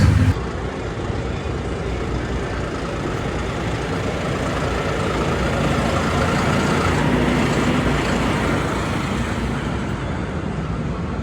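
Engine noise from a pulling vehicle, a steady rumbling haze that grows louder toward the middle and then eases off.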